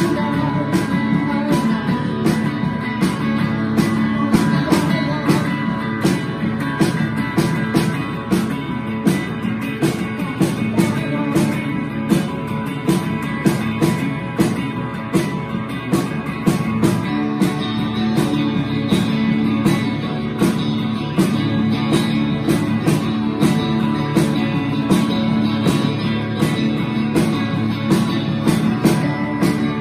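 Live rock band playing: guitars over a drum kit keeping a steady beat.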